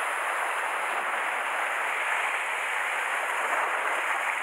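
Sea surf washing and foaming over the rocks below: a steady hiss with no breaks.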